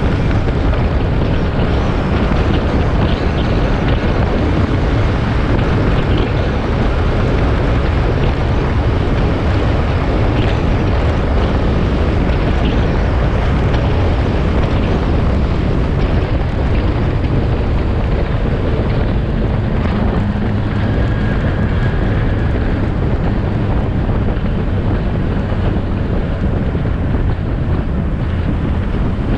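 Wind buffeting the microphone of a motorcycle-mounted action camera while riding, a loud steady rumble with the motorcycle's engine and tyre noise blended in underneath.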